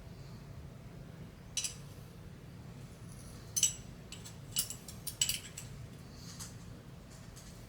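Small metal parts of a butterfly knife clicking and clinking together as a handle is fitted over stainless steel washers onto the blade's pivot. There are several sharp light clicks, spread over a few seconds.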